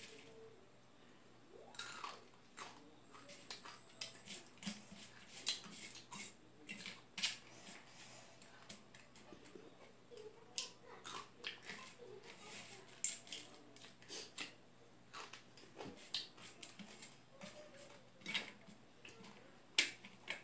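Dry fried snacks crunching: crumbled dry noodles and corn-stick snacks being chewed and picked at by hand on a steel plate. It is a steady run of sharp crackles and clicks.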